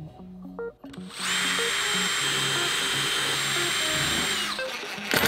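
DeWalt 20V cordless drill running at steady speed as it drills into the table, starting about a second in and stopping near the end, with a steady high whine from its motor. Background music plays underneath.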